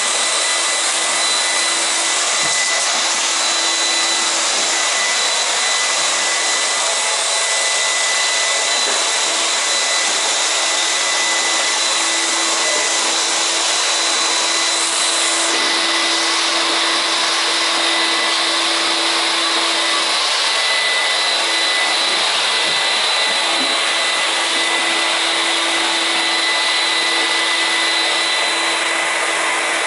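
Steady, loud whirring hiss of a small electric motor blowing air, with a high whine over it.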